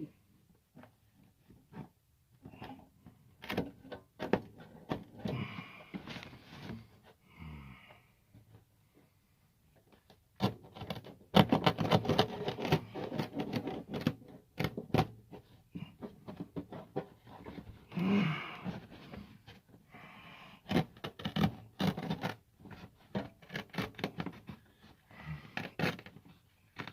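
Irregular scraping, rustling and knocking of hands-on work at floor level, with a denser run of rapid scraping a little before the middle, and a person breathing hard in between.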